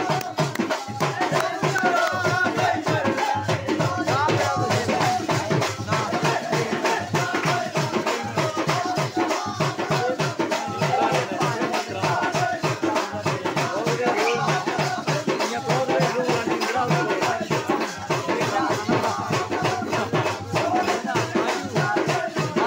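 Live music with a fast, steady rattling percussion beat under a wavering melody line, without a break.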